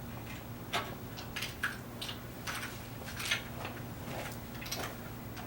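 Caster wheels being pushed into the tubular legs of an adjustable metal bed frame: a string of light, irregular clicks and taps as the wheel stems slide in with little pressure.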